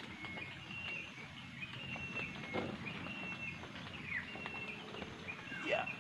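Small birds chirping over and over in the background, with leaves and branches rustling and knocking as someone climbs through a tree. A short gliding squeal comes near the end.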